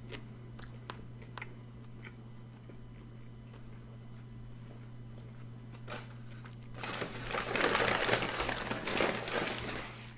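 Quiet chewing with a few small wet mouth clicks over a steady low hum, then from about seven seconds in a burst of loud crinkling as a paper burger wrapper is handled and crumpled for a few seconds.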